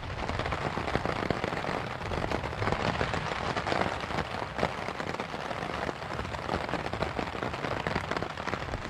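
Rain falling on a tarp overhead: a dense, steady run of small drop ticks.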